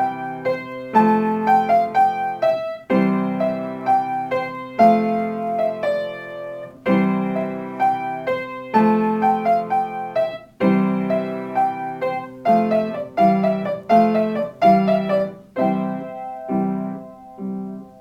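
Piano playing a slow instrumental intro: sustained chords struck about every two seconds, with a melody of single notes moving above them.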